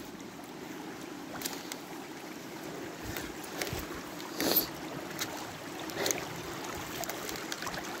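Shallow stream water running steadily over rock, with scattered light cracks and knocks of footsteps and twigs in the brush.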